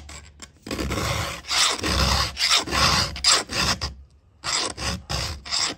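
Round file rasping back and forth through a saw chain's cutter in a run of hand strokes, with a short pause about four seconds in before the strokes resume.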